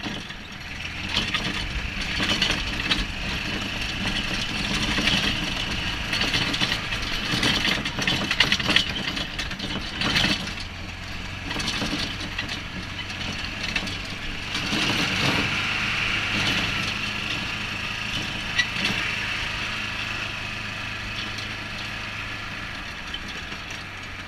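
Golf cart driving along, its motor running steadily under a low hum, with scattered rattles and knocks as it rolls over the paving.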